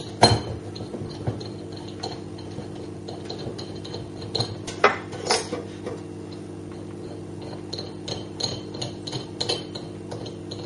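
Scattered metal clinks and clicks of a hand tool and a threaded-bar jig against a lever espresso machine's group and piston housing. The loudest clinks come near the start and about halfway through, with lighter ticks later. A steady low hum runs underneath.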